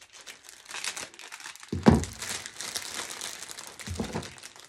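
Crinkling of the plastic cellophane wrapping on a bunch of supermarket flowers as it is handled, with a dull thump about two seconds in and a softer one near the end.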